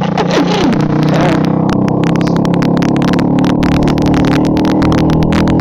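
Hero Splendor's single-cylinder engine running through an Akrapovic exhaust with no dB killer while the bike is ridden at a steady speed. The exhaust note holds an even pitch.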